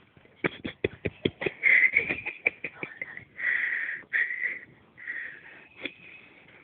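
A sleeping woman snoring with wheezy, whistling breaths. A rapid run of short sharp sounds fills the first two seconds.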